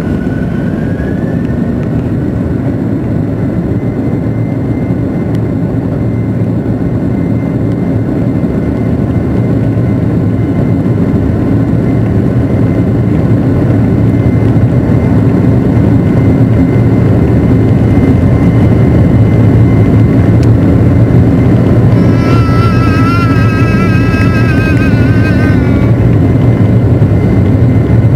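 Boeing 737-800's CFM56-7B engines heard from inside the cabin over the wing during the takeoff roll: a steady rumble that grows louder as the plane gathers speed, with a high whine that rises in pitch about a second in and then holds steady. A wavering high tone sounds for a few seconds about three-quarters of the way through.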